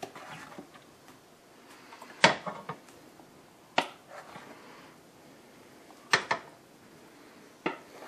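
A spoon scraping in the mixing bowl and knocking against its rim and the metal muffin tin while batter is spooned into the cups: a few sharp clinks spread out, two close together about six seconds in, with soft scraping between.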